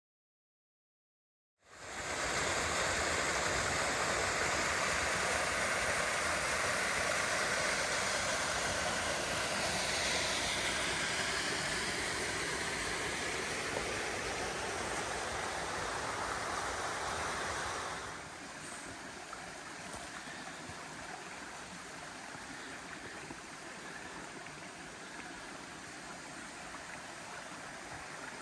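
The Williams River, a small rainforest stream, running over rocks in a steady rush of water. It starts about two seconds in and turns softer about two-thirds of the way through.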